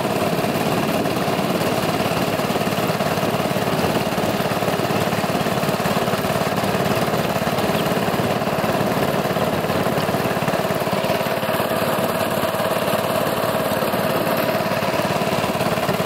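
Small boat's motor running steadily while under way, an even engine note that does not change.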